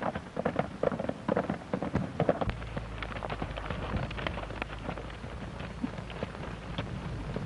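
Horses galloping: a rapid, uneven patter of hoofbeats, with stronger regular thuds in the first couple of seconds. About two and a half seconds in, a low steady hum from the old soundtrack comes in under the hoofbeats.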